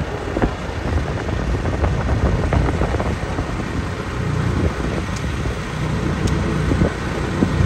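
A motor vehicle's engine running with a steady low rumble, with light clicks and rattles over it.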